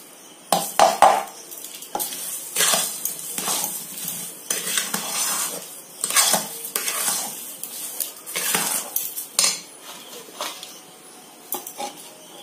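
Spatula scraping and knocking in a metal pan while stirring sugar into a thick semolina (rava kesari) mixture: irregular strokes about one a second, with sharp knocks about a second in and again near the end.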